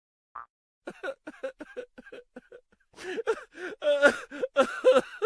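High-pitched laughing sound effect: a quick string of short voiced syllables that grows louder about halfway through, after a brief beep at the start.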